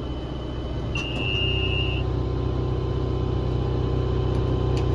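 Tractor engine running steadily, pulling a little harder from about a second in, with one steady electronic beep about a second long.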